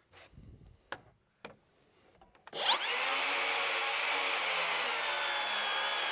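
A few light clicks as the saw is handled, then about two and a half seconds in a Makita XGT 40V cordless rear-handle circular saw spins up with a brief rising whine and cuts steadily through a wooden board. The motor holds its speed under load.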